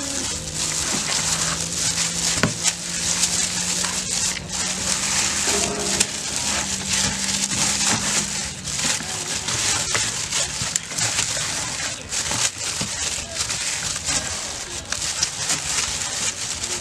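Crackling and rustling of a thin plastic bag worn over a hand as it rubs marinade into a whole raw duck, with wet squishing of the skin against a plastic bowl. A steady low hum runs underneath until about halfway through.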